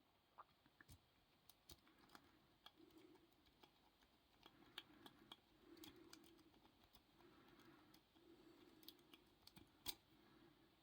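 Faint, irregular light clicks and ticks of a lock pick being rocked in the keyway of a padlock.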